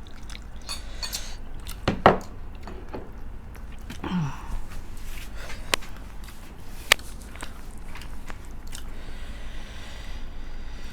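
Close-up eating sounds: chewing and biting into food, with scattered sharp clicks, the loudest about two seconds in and again near seven seconds.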